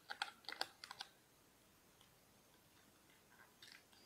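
Small, sharp plastic clicks and taps from handling a clear SJ4000 waterproof housing and its back door at the hinge: a quick cluster in the first second, then a few faint ones near the end.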